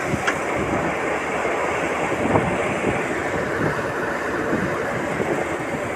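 Diesel engine of a Tata Hitachi excavator running steadily as it dumps wet soil from its bucket into a tipper truck. A few short louder knocks come through, about a third of a second in and again a little past two seconds.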